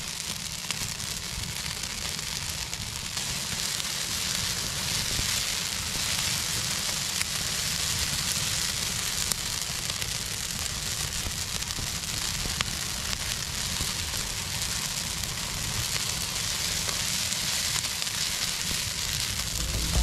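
Campfire burning fresh green cedar boughs: a steady hiss and sizzle with scattered small crackles.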